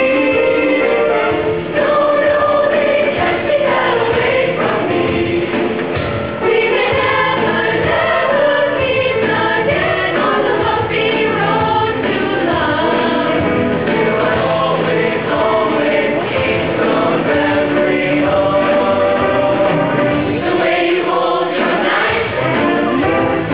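High school show choir singing, many voices together holding chords.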